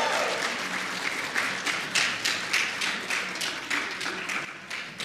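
Audience applause, with individual hand claps standing out, fading toward the end.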